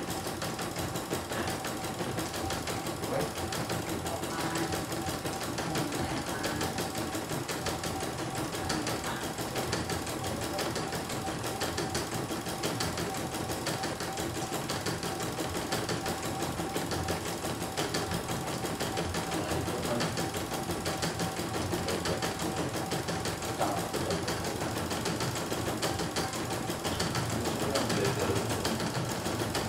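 CNY E900 computerized embroidery machine stitching a design: a steady, rapid needle clatter with a constant whine underneath.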